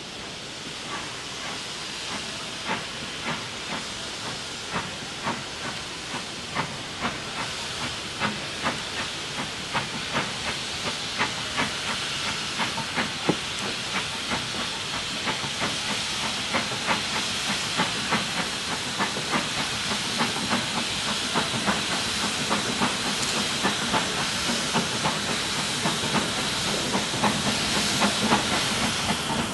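Steam locomotive working slowly away from a halt: a steady hiss of steam with a regular beat of sharp exhaust chuffs, growing louder as the engine draws nearer.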